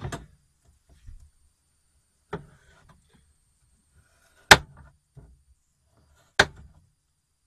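Kitchen knife chopping through a frozen portobello mushroom onto a plastic cutting board: three sharp chops about two seconds apart, the middle one loudest, with a few faint knocks between.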